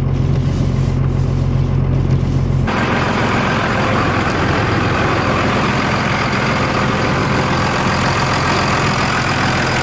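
International DT466 diesel engine of a school bus idling, just jump-started on a cold morning. About three seconds in, the deep low hum drops out abruptly and a harsher, hissier running sound carries on at the same loudness.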